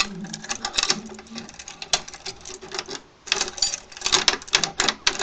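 Rapid metallic clicking and rattling as a 3-lever try-out key is wiggled and turned in a 3-lever lock, the other keys on the ring jangling, with a short pause about three seconds in. The key does not open the lock.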